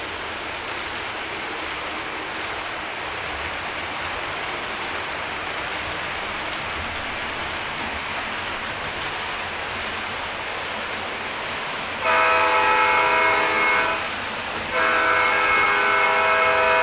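Steady running noise of a model train on its shelf track. About twelve seconds in, the CSX ES44AC locomotive's Proto-Sound 3 sound system blows its chord horn twice: a blast of about two seconds, a short break, then a longer second blast.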